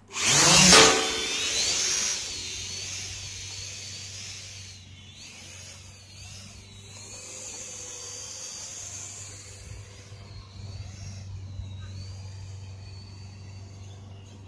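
Small remote-controlled drone taking off: its propellers start with a loud high whine, then keep whining with a pitch that wavers up and down as it flies, quieter after the first couple of seconds.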